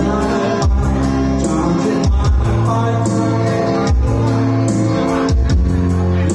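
Music with singing over a strong, sustained bass.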